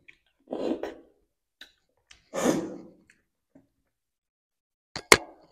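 Close-miked mouth sounds of eating ice cream from a cone with a plastic spoon: two breathy intakes, each about half a second long, a few faint clicks, and two sharp smacks near the end.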